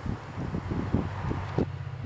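Diesel freight locomotive's engine running with a steady low rumble as the train approaches, with wind buffeting the microphone in irregular gusts.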